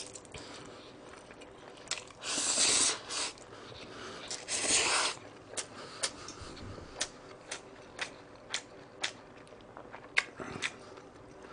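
Two long slurps of cold spicy bibim-myeon noodles, then close-miked wet chewing with short mouth clicks about twice a second.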